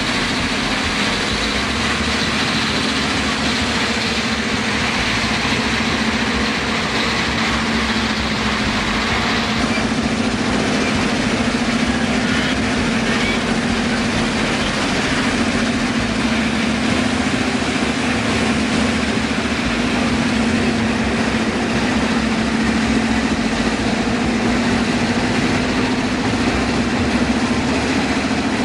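Steady mechanical din of a stone-crushing plant at work, with crushers, vibrating screens and conveyors running under a constant hum.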